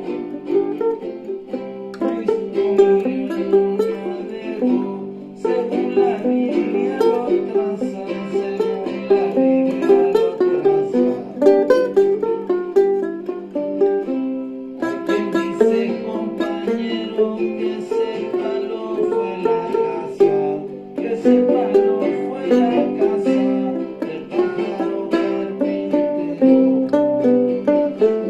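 Plucked string instruments playing a quick tune in many fast notes, with short breaks between phrases about 5, 14 and 21 seconds in.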